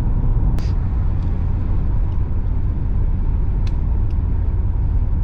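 Steady low rumble of a vehicle on the move, engine and road noise heard from inside the cab, with a couple of faint clicks.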